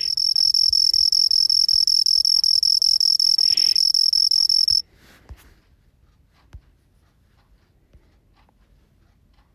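A recorded ground cricket's song played back: a continuous high-pitched, rapidly pulsing trill that cuts off abruptly about five seconds in, followed by a few faint clicks.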